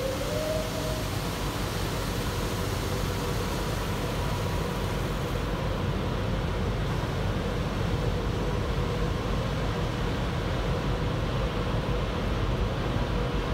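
Car wash tunnel air dryers blowing on the car, heard from inside the cabin: a steady rush of air with a faint steady hum, blasting water across the windscreen. The highest part of the hiss turns duller about halfway through.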